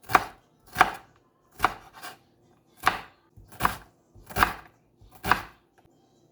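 Kitchen knife dicing bell pepper and onion, about seven sharp, evenly spaced chops a little under a second apart.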